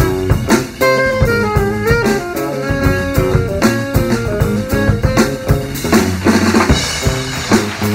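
Small jazz group playing: a drum kit with snare, rimshots and bass drum under a moving melodic line and low bass notes. The texture gets denser and washier about six seconds in.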